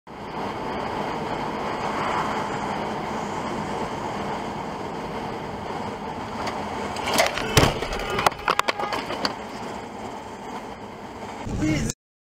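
Steady road and engine noise of a moving car, picked up by a dashcam, with a cluster of sharp knocks and bangs a little past halfway through.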